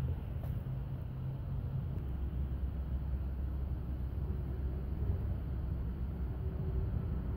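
A steady low mechanical hum whose pitch drops to a lower note about two seconds in.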